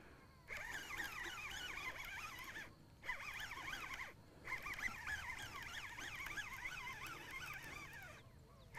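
Faint chorus of birds chirping and calling, many short quick notes overlapping, broken by a few brief silences.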